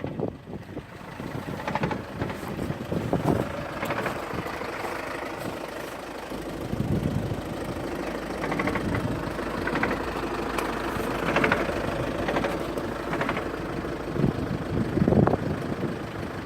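2.0 TDI four-cylinder turbodiesel idling while warming up, with irregular knocks every second or two over the steady running; the owner cannot explain the knock.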